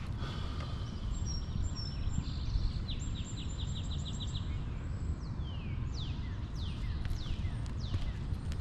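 Steady low wind rumble on the microphone, with a songbird singing over it: a few short high notes, a quick trill of about eight notes, then a series of falling whistled notes.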